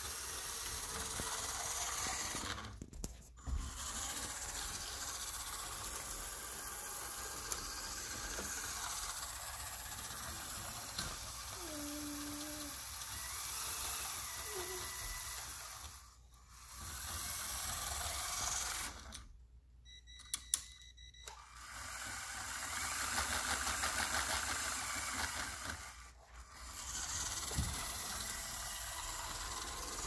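Lego Power Functions electric motors driving the car's plastic gears, a steady whirring hiss that cuts out briefly about four times and starts again.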